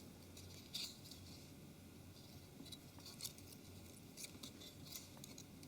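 A few faint, scattered clicks and light scrapes of a flex cable and phone chassis being handled as the cable is fitted into place, over near silence.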